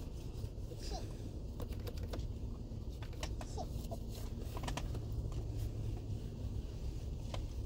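A wipe rubbing and pressing over a car's leather steering wheel and its plastic control buttons, making scattered light clicks and rustles, over a low steady hum inside the car cabin.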